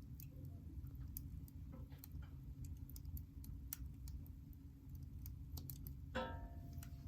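Firewood burning in a fireplace, crackling with scattered small irregular pops over a low steady rumble. A short pitched squeal comes about six seconds in.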